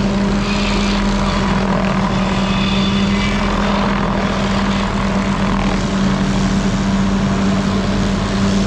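A small engine running steadily at high speed, with an even drone and no changes in pitch or load.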